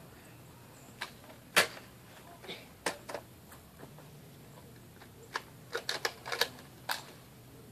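Sharp plastic clicks and knocks from foam-dart blasters being handled, primed and fired. They come scattered, the loudest about one and a half seconds in, with a quick run of them near the end.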